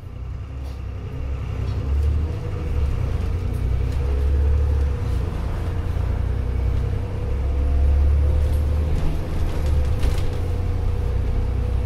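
Dennis Trident Optare Olympus double-decker bus under way, heard from inside: a low engine rumble with a steady whine over it, growing louder about two seconds in.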